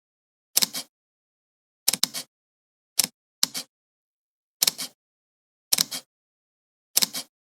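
Camera shutter release firing seven times at roughly one-second intervals, two of them in quick succession. Each shot is a sharp click followed straight away by a softer second click.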